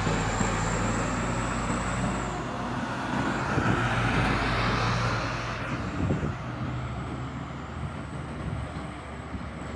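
A heavy truck's engine running low and steady as it passes on the road, with tyre and road noise swelling and then fading. The engine hum drops away near the end.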